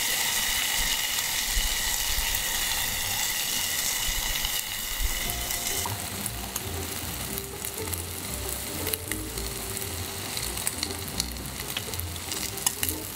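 Beef sizzling on a grill: a steady hiss with scattered light crackles.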